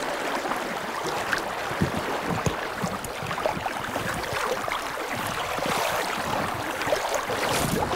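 Steady rush of flowing river water rippling past.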